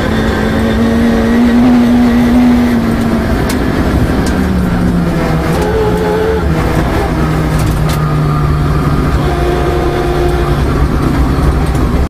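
Engine of a rear-wheel-drive Peugeot 306 rally car heard from inside the cabin on a gravel road. The revs drop about three seconds in and settle at a lower steady note, over constant tyre and road noise with a few sharp ticks.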